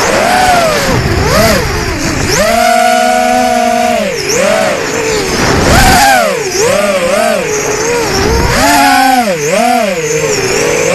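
Racing quadcopter's Racerstar 2205 2300KV brushless motors spinning three-blade 5-inch props, heard from the onboard camera: a loud buzzing whine whose pitch swoops up and down again and again as the throttle is worked. Short bursts of rushing noise break in a few times, the loudest about six seconds in.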